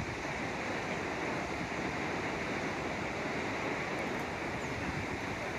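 Steady rushing of a river flowing through a deep canyon.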